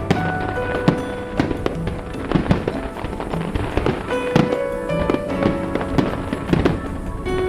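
Fireworks bursting in a rapid series of sharp bangs and crackles, heard over music with long held notes.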